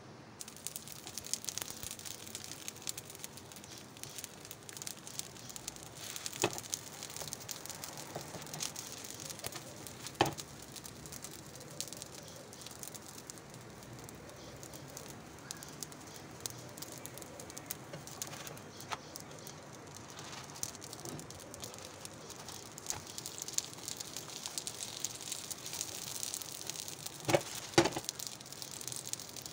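Minced-meat gözleme frying in an oiled non-stick pan, sizzling and crackling steadily. A few sharp clicks break through, the loudest two close together near the end.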